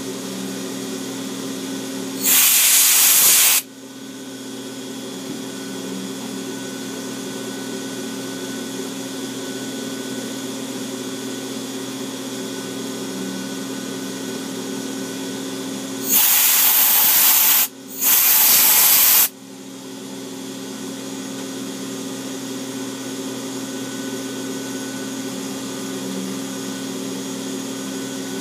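CNC milling machine spindle running steadily with a small engraving cutter working the steel receiver of a Thompson Model 1928A1. Three loud hissing blasts of compressed air clear the chips from the cut: one a few seconds in, and two back to back just past the middle.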